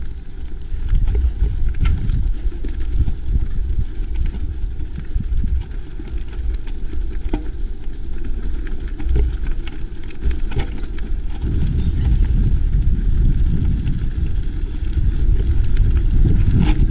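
Mountain bike rolling fast downhill on a rough track, rattling with scattered sharp clicks, under heavy wind rumble on the microphone. The rumble grows stronger about two thirds of the way through.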